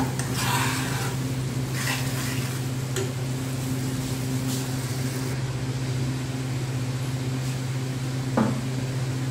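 Tomato-based chicken filling sizzling in a frying pan on a gas stove, with a metal spoon stirring and scraping the pan in a few short strokes, the loudest near the end. A steady low hum runs underneath.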